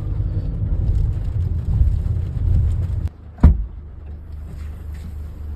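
A loud low rumble that drops off suddenly about three seconds in, followed by a single sharp thump and then a quieter steady low hum.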